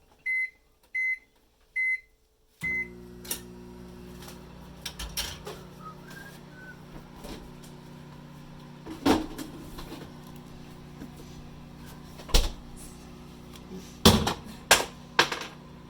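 Microwave oven keypad beeping four times as it is set, then the oven running with a steady hum. A few sharp knocks and clatters sound over the hum.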